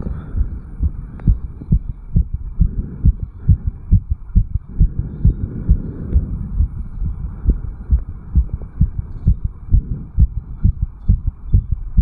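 A man's heart beating fast and hard after a jog uphill, recorded at the chest over the mitral valve area: a rapid, even run of low lub-dub thumps, about three beats a second (160 to 180 beats a minute).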